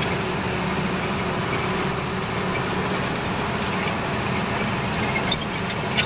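Truck on the move: steady engine hum under an even hiss of tyre, road and wind noise, heard from the cab.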